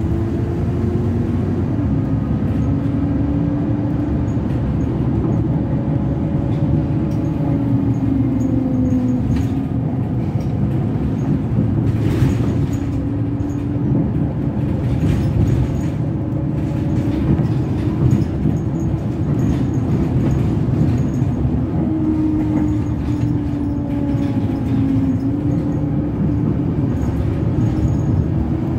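Optare Versa bus heard from inside the saloon while driving: a steady engine and road rumble with a whining tone that climbs and drops several times as the bus speeds up and slows. A few brief rattles come through about halfway.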